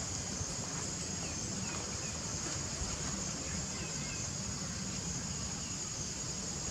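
Outdoor ambience: a steady high insect drone over a low wind rumble on the microphone, with a few faint short chirps.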